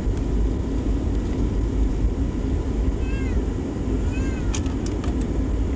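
Jet airliner cabin noise as the plane rolls along the runway: a steady deep rumble of engines and wheels with a faint constant hum. About three and four seconds in come two short, high, rising-and-falling cries, followed by a few sharp clicks.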